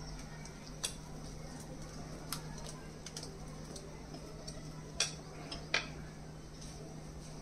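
A wire whisk and glass mixing bowl clink lightly as thick batter is scraped out into an aluminium tray: scattered sharp clicks, the two loudest about five and six seconds in, over a steady low hum.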